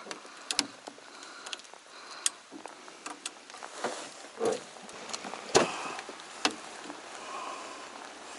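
Irregular clicks and knocks of a landing net's aluminium handle and plastic holder being handled and worked loose, with a sharper knock about five and a half seconds in. Rain patters steadily underneath.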